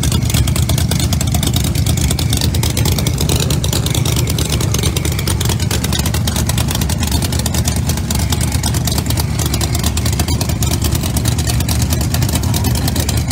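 Supercharged drag-racing V8 of a ProCharger Corvette Pro Mod idling loudly through open zoomie headers: a steady, rapid crackle of exhaust pulses.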